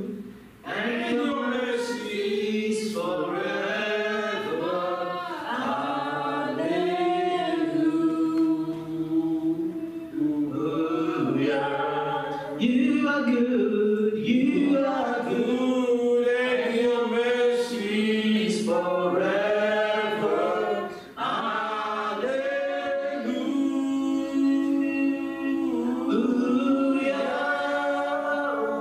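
Unaccompanied singing of a worship song by several voices together, a cappella, with short breaks between phrases.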